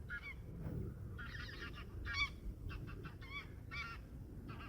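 A flock of geese honking: many short overlapping calls in repeated clusters, faint but a real racket.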